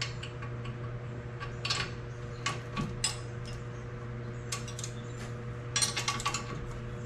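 Hand tools clinking on metal and a wrench ratcheting in short bursts of quick clicks while a strut bolt on a VW Golf is tightened, over a steady low hum.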